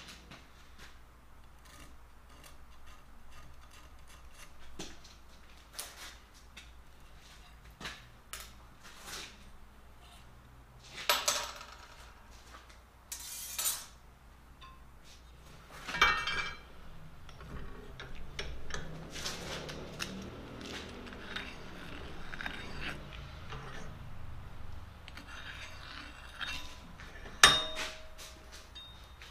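Steel parts and hand tools being handled at a bench vise: scattered metallic clinks and knocks, with a few louder clatters and one sharp clank near the end.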